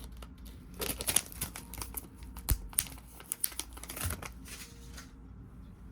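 Small plastic packaging crinkling, with irregular light clicks, as nail-art items are handled and put back into their packets, settling down near the end.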